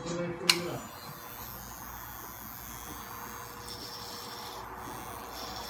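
A sharp click about half a second in, then corded electric hair clippers running steadily as they cut through a client's short hair.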